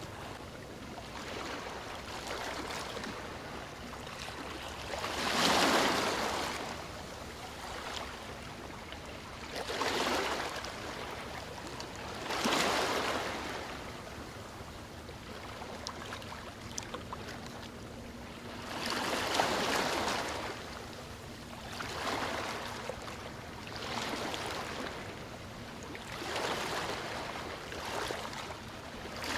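Sea waves washing onto the shore, the surf swelling and falling away every few seconds, with bigger waves about five, twelve and nineteen seconds in.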